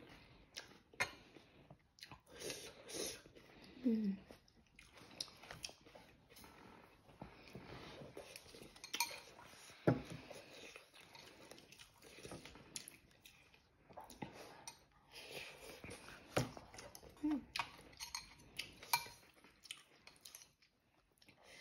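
Close-up eating of instant noodles: chewing, with chopsticks and a metal spoon clinking now and then against the bowl and pot, the sharpest clink a little before the middle.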